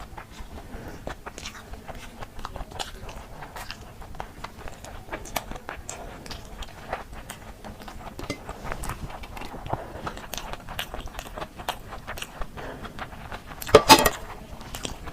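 A person eating close to the microphone: steady chewing and biting with many small crunches and clicks, and a louder crunching burst near the end.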